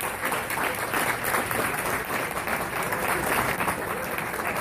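Audience applauding: many hands clapping at once in a dense, continuous patter.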